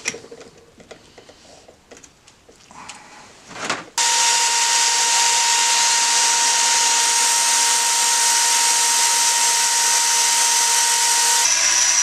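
Light clicks and knocks of hands handling a drill chuck and a metal shaft. From about four seconds in, a cordless drill runs at steady full speed with a high, even whine, spinning the metal shaft in an improvised drill lathe. Near the end the sound changes abruptly to a bench grinder running with a low hum.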